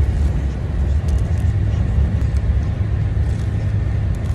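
Steady low rumble of vehicle road noise, with no break.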